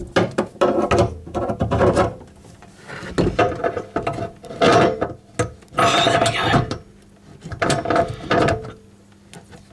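Basin wrench tightening a tap's supply nut: metallic clicking and rattling as the tool is turned and reset on the nut, in about four short bouts.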